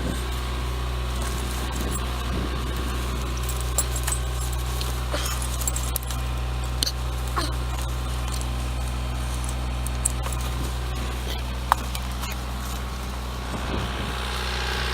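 A CAT 924F wheel loader's diesel engine running steadily, with scattered light clicks and metallic jingling over it.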